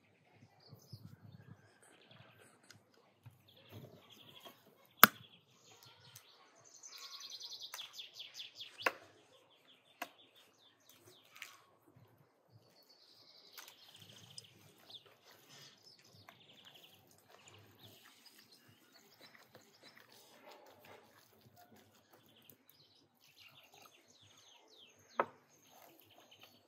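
Small birds chirping and trilling, with a few sharp knocks, the loudest about five seconds in and another near the end, over soft handling noise as minced meat is mixed in a bowl.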